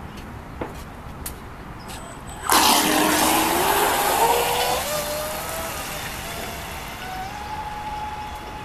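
Zippkits JAE electric RC racing boat with a TP Power 3640 brushless motor taking off: about two and a half seconds in comes a sudden loud rush of water spray, and the motor's whine rises steadily in pitch as the boat accelerates. Both fade gradually as the boat runs away.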